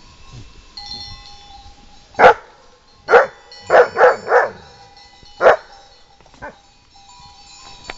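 Young Kangal shepherd dog giving warning barks at someone nearby: about six barks, with a quick run of three in the middle and the last one fainter.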